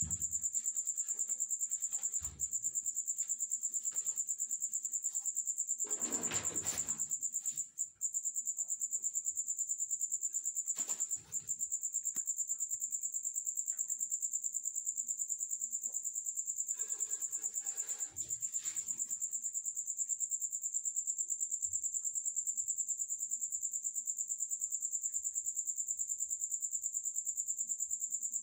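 Crickets trilling without a break, a high, fast-pulsing chirp. Short rustling noises come about six seconds in and again around seventeen seconds.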